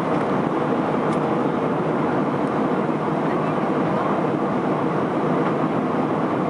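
Steady cabin noise of an Airbus A319 in flight: the even rush of engines and airflow heard from a window seat.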